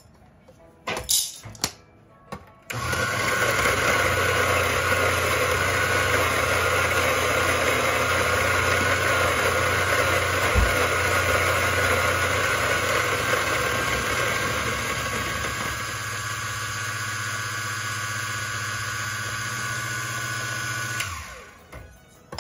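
Electric coffee grinder grinding beans, a steady motor hum and whine for about eighteen seconds that eases slightly in the last few seconds as the beans run through, then stops. Just before it, a few light clinks and rattles.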